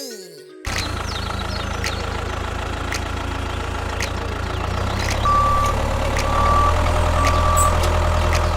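A heavy vehicle's engine running steadily with a deep rumble. It starts abruptly, and in the second half three short reversing beeps sound.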